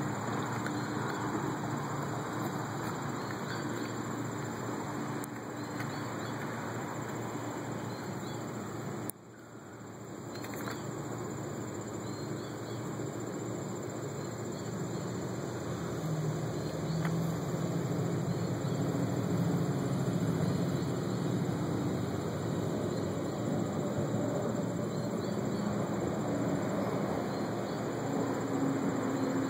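Steady outdoor ambience with insects chirping and trilling over a constant low background rumble.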